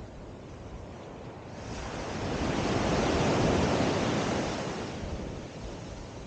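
Ocean wave breaking and washing up the beach. The rush of surf swells for a couple of seconds and then fades away.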